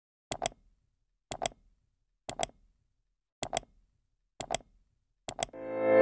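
Ticking-clock sound effect: a sharp double tick about once a second, six times over, then a rising swell near the end leading into music.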